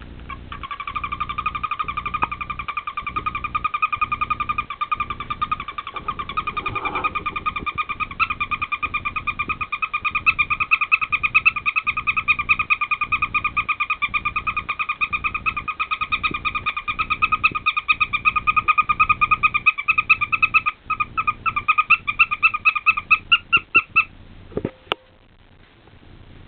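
Pet parrot giving a long, rapid, pulsing trill on one steady pitch, held for over twenty seconds before breaking up into a run of separate short chirps; a single sharp click follows.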